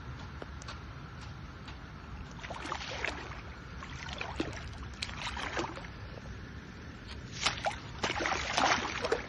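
A hooked Siamese carp splashing at the water's surface as it is played in, in irregular bursts of splashing that are loudest near the end.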